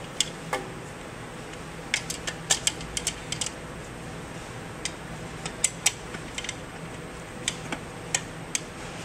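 Irregular sharp metallic clicks and clinks of a hand wrench working the bolts at the back end of an electric pump motor as they are tightened snug, over a steady low hum.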